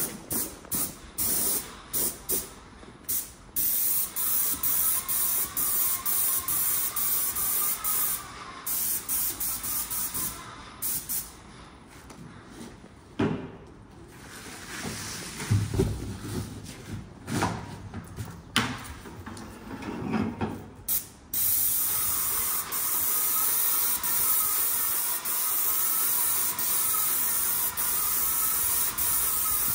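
Small Chinese paint sprayer's gun hissing as it sprays paint onto a wall, first in a quick run of short spurts, then in long steady passes while the trigger is held. In the middle a few knocks and handling noises take over before the steady spraying resumes.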